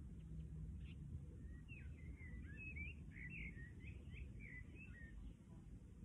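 A songbird singing a quick twittering phrase of short whistled notes from about a second and a half in until just past five seconds, over a low steady background rumble.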